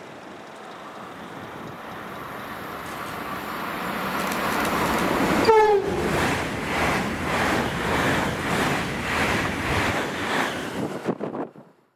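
A train approaching and growing steadily louder, sounding one short horn toot about halfway, then passing close by with a regular rhythmic beat from its wheels before the sound cuts off abruptly near the end.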